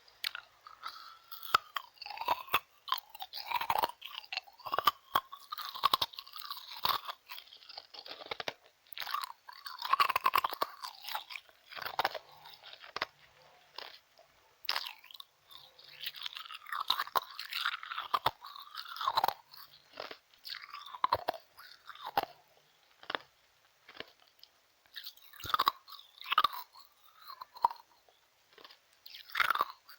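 Ice cubes being bitten and crunched between the teeth close to the microphone, in many irregular crunches with short pauses between bites.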